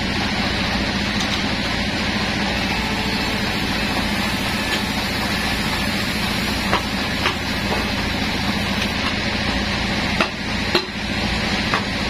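Band sawmill machinery running steadily with a constant hum, not yet cutting, while a large dry log is shifted on the carriage. A few sharp knocks sound over it, the strongest two about ten seconds in.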